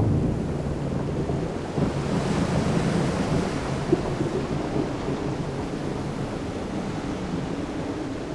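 Wind and surf of a stormy sea: a steady rushing noise over a low rumble, swelling a little about two seconds in.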